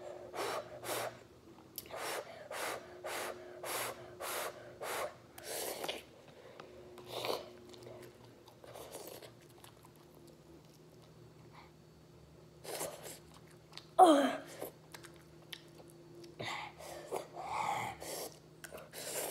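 A boy blowing short puffs of breath on a forkful of hot instant ramen noodles to cool them, about two puffs a second for roughly six seconds, then sporadic slurping, chewing and sniffing as he eats the spicy noodles, with one loud breathy gasp about fourteen seconds in.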